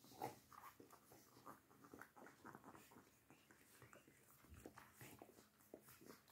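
Newborn puppies nursing, giving faint, irregular sucking and smacking sounds several times a second.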